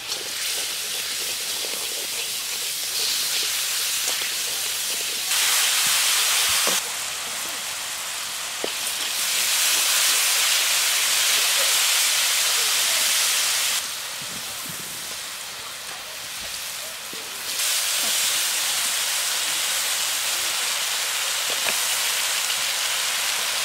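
Curry paste frying in hot oil in a wok over a wood fire: a steady sizzle that swells louder several times for a few seconds, with a few faint knocks of the bamboo stirring stick.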